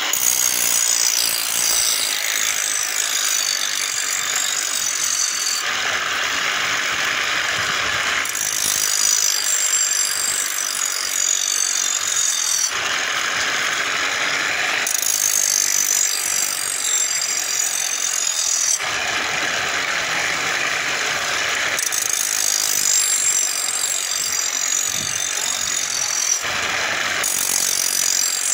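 Pedal-powered grinding wheel sharpening a steel blade: a steady gritty grinding hiss as the blade is pressed against the spinning stone. The passes swell and ease every few seconds, over the ticking and rattling of the chain and belt drive.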